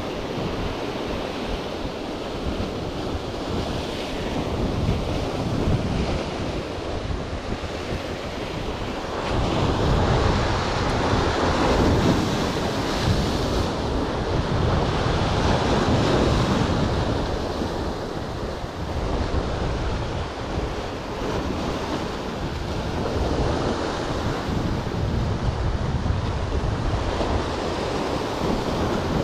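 Sea waves breaking and washing over the boulders of a rock jetty, with wind buffeting the microphone. The surf swells louder twice, about ten and sixteen seconds in.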